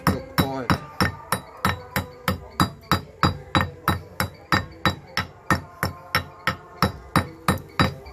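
A hammer striking the cut edge of a stone in a quick, steady rhythm, about four blows a second, each with a short ringing note. It is knocking small chips off the sawn edge so that it looks chiselled rather than cut.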